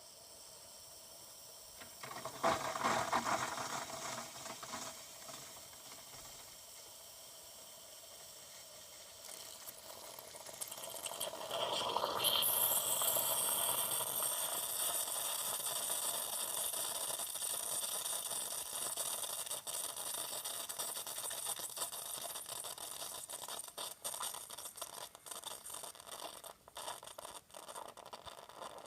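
Bosch Tassimo pod coffee machine brewing. There is a short spluttering burst a couple of seconds in. From about ten seconds a steady hiss of hot water and steam builds, and it turns sputtery near the end of the brew cycle.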